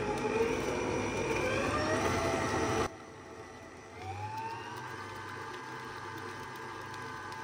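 Electric stand mixer beating eggs into creamed butter, margarine and sugar in a stainless steel bowl, its motor whirring with a rising whine. The sound drops away sharply about three seconds in, then the motor whirs back up a second later and runs on steadily and more quietly.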